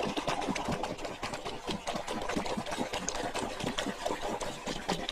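A muddy toy vehicle being scrubbed clean: a steady run of rapid, irregular scraping and rattling.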